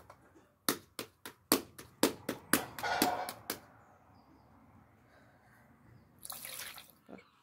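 Hands patting and pressing a piece of bread dough in a floured metal basin: a quick run of about nine sharp pats in the first half, then a short scuffing stretch. A brief hiss follows near the end as a small metal bowl is worked over the basin.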